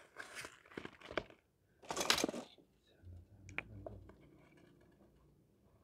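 Off-camera handling noises: rustling, with a short loud rustle about two seconds in and a couple of sharp clicks a second and a half later.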